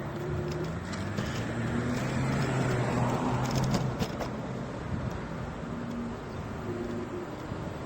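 Street traffic: cars running past with a steady hum of engines and road noise, a few engine tones shifting in pitch as vehicles go by.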